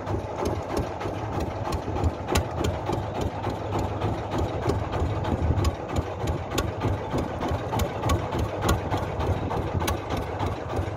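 Small fishing boat's engine running steadily at low speed, with a regular clicking about three times a second over its low rumble.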